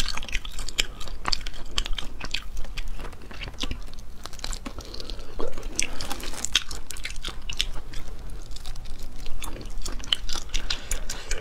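Close-miked eating of spicy crayfish tails: a dense, irregular crackling as the shells are peeled apart by fingers, mixed with chewing and crunching.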